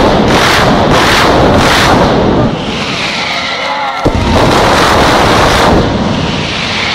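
Mascletà firecrackers going off in a dense, rapid barrage of loud bangs. The barrage eases about two and a half seconds in, a single sharp crack comes about four seconds in, then a second dense run of blasts starts and tapers off near the end.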